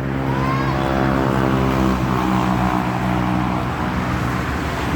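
Heavy bus engine running close by with a deep, steady note that sags slightly in pitch as it passes, over road noise.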